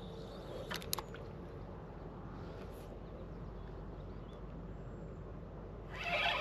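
Quiet outdoor background with two light clicks about a second in, then a spinning reel being cranked near the end: a wavering whirr that rises and falls in pitch with the turns of the handle.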